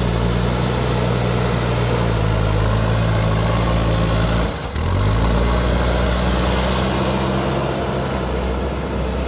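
Diesel engine of a JCB backhoe loader running steadily with a low, even drone; the sound dips briefly a little past halfway and then carries on.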